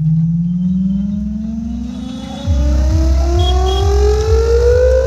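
A siren-like tone played through a large DJ sound-box system, gliding slowly and steadily upward in pitch. Heavy deep bass comes in under it about two and a half seconds in.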